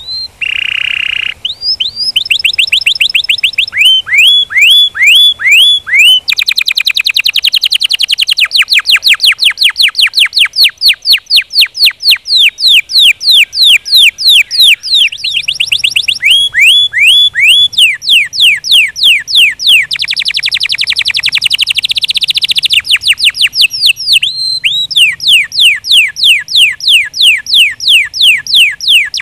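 Domestic canary singing a long song of high, rapid trills: the same short swept note repeated many times a second, switching to a new trill every few seconds, with one brief held note near the start.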